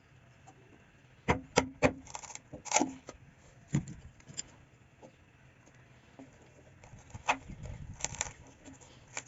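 Scattered sharp knocks and clatters: three quick ones about a second in, a few more over the next two seconds, and another cluster near the end. The bandsaw is not heard running.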